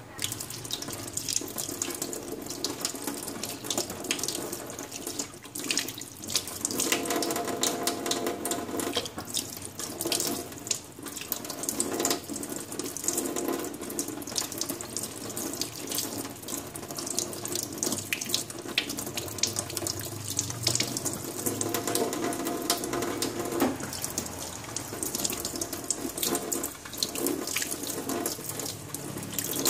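Tap water running steadily into a stainless steel sink, splashing over hands and a piece of raw meat being rinsed under the stream. The splash changes in tone every few seconds.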